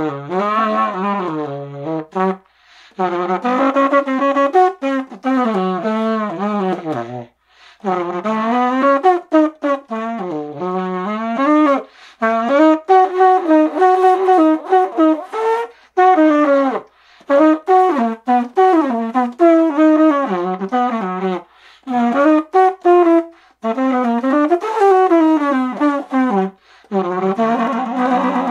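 Unaccompanied saxophone playing a jazz melody in short phrases, with notes that bend and slide and brief pauses for breath between phrases.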